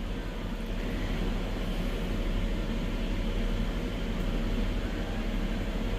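A fan running steadily: an even low hum with hiss underneath, unchanging throughout.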